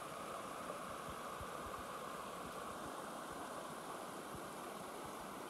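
Shallow creek water rushing over a rocky riffle, a steady even rush.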